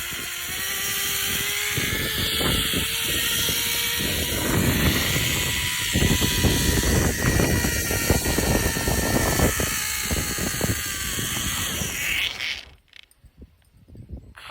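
Zip line trolley pulleys running along the steel cable with a steady whine, mixed with wind rushing over the microphone and buffeting rumble; the noise cuts off suddenly near the end.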